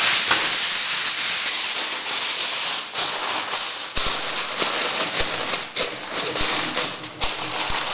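A sheet of aluminium kitchen foil being spread and pressed over a baking tin, crinkling and rustling loudly with sharp crackles every second or so.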